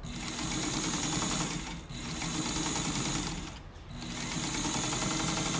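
1958 Windsor straight-stitch sewing machine, a clone of the Singer 15 class with an oscillating hook, stitching through cotton at speed. It pauses briefly twice and runs on. It runs quietly, freshly cleaned and lubricated in an overhaul.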